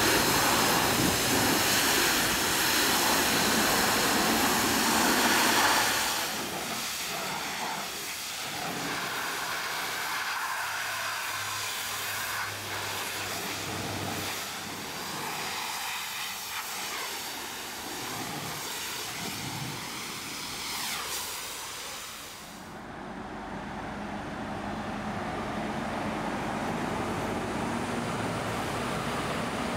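High-pressure jet wash spraying water onto a truck cab: a loud, steady hiss of spray for the first six seconds, then a quieter, uneven spatter and hiss. Some seconds before the end the hiss stops and a low steady rumble remains.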